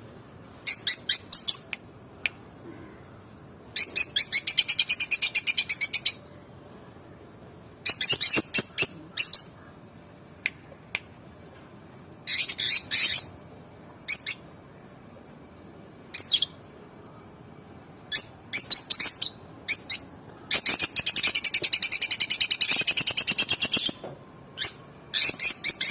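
Peach-faced lovebirds chirping: sharp, high-pitched chirps in quick bursts separated by pauses, with two longer runs of rapid chattering lasting a couple of seconds each.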